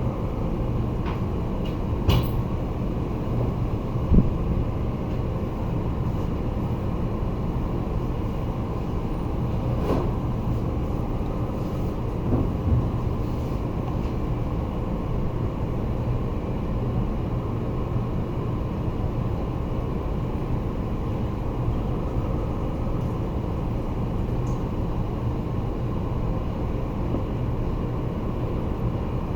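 Steady low background rumble with a faint constant hum, broken by a few short light clicks about two and four seconds in and again near the middle.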